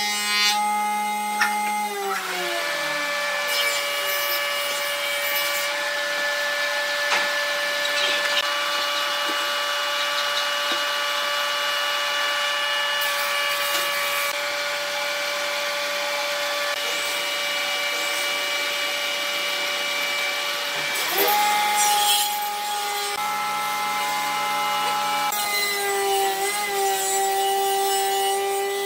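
A machine's electric motor running with a steady whine over a noisy hiss. Its pitch slides down about two seconds in and back up later.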